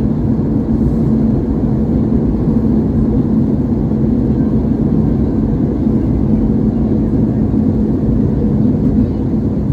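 Steady cabin noise of a jet airliner in flight: a low rush of engine and airflow with a constant low hum running through it.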